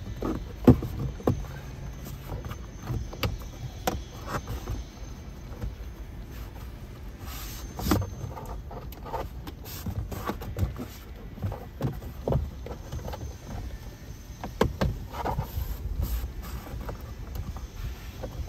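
Plastic interior trim pieces of a Ford F-150 being pressed home by hand, their clips snapping into place. Irregular clicks and knocks, the sharpest about a second in.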